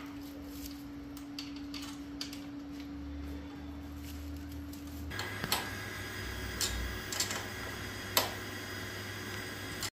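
Sparse sharp metallic clicks and taps of hand tools on bolts and metal while a motorcycle crash guard is being fitted, over a steady background hum. The hum stops and the background changes abruptly about halfway through. The clearer clicks come in the second half.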